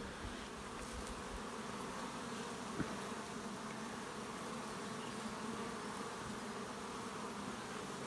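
Honey bees buzzing steadily at a busy hive entrance, many foragers flying in and out. The heavy traffic is, in the beekeeper's reading, a sign that there's probably still a nectar flow.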